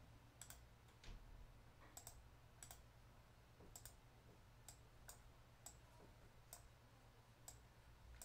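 Faint, irregular computer clicks, about one a second, over a low steady hum.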